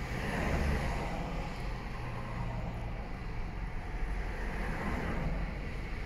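Steady outdoor road-traffic rumble with a low hum.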